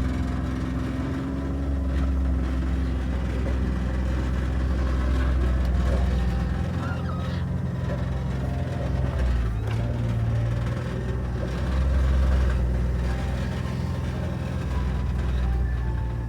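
Kawasaki Mule side-by-side's engine running steadily as it drives, a constant low drone.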